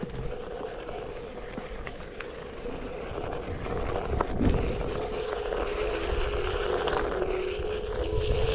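One-wheeled electric board running down a dirt trail: a steady motor whine over a low rumble of rolling and wind, growing louder near the end.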